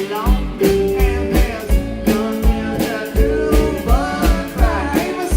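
Live rock band playing, with a drum kit keeping a steady kick-drum beat under pitched lines that bend up and down.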